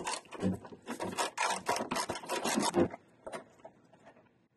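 Half-inch drive ratchet clicking rapidly in short runs as its handle is swung back and forth, backing out a loosened 17 mm engine-mount bolt. It stops about three seconds in, followed by a few faint clicks as the bolt is turned out by hand.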